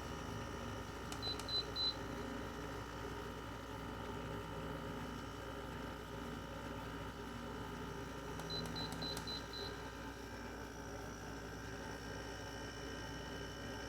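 LG 6,000 BTU window air conditioner running with a steady hum, and its controls beeping in short high pips: three about a second in and five more around eight and a half seconds in.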